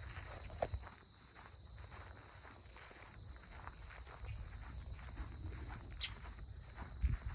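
A steady chorus of crickets trilling at two high pitches, with footsteps crunching along the trail, a few louder steps near the end.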